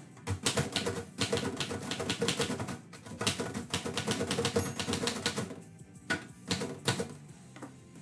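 Typewriter being typed on: a fast run of key strikes for about five seconds, then a pause and a few single strikes near the end.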